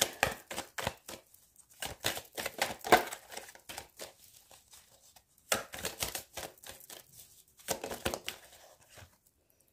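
A deck of cartomancy cards being shuffled by hand, with quick runs of papery clicks and slaps as the cards drop from one hand into the other. The shuffling comes in three runs with short pauses between them and stops about nine seconds in.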